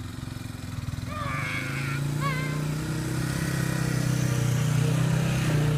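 Honda Big Red ATC three-wheeler's single-cylinder four-stroke engine running steadily at low speed while towing a sled through snow. It grows louder as it comes closer.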